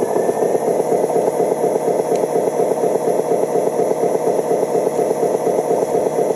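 Radio-controlled Mercedes-Benz dump truck's sound module playing a simulated diesel engine, a steady, rapid, even chugging while the truck crawls along.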